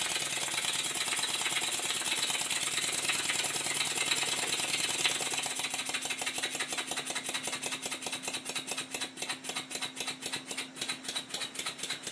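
Stuart 10H model steam engine running on test: a fast, steady stream of exhaust beats and small mechanical clatter that slows and softens over the second half, until the beats can be told apart. Its valve timing is not yet set and is still retarded, and the engine runs a little tight.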